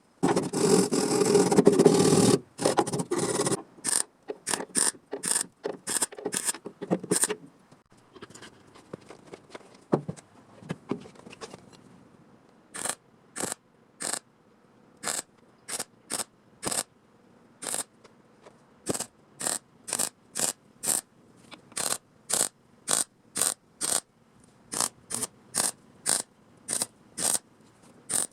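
Sheet-metal working noise: a couple of seconds of loud continuous scraping, then a long run of short, regular scraping strokes, sparse at first and about two a second in the second half.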